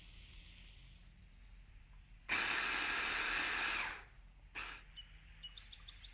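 Hand blender's chopper attachment pulsed once for about a second and a half, its motor running and the blades whirring through biscuit crumbs and melted butter. A shorter burst follows about a second later.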